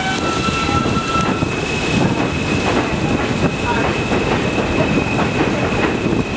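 New York City Subway R160A-1 train pulling out and gathering speed past the platform: a steady rumble with wheels clacking over rail joints and a thin, steady high whine.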